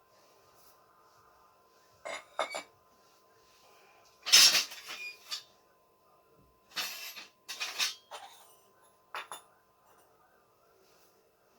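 Metal gas-stove parts clinking and scraping as they are handled and cleaned, in about six short bursts, the longest and loudest near the middle.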